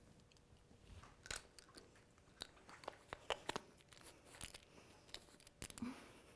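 Faint mouth sounds of swallowing and chewing, with scattered small clicks and crunches.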